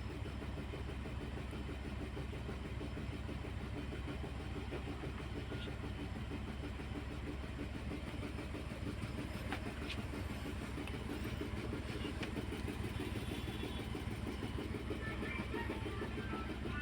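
Car engine idling steadily, with a fast, even run of low pulses.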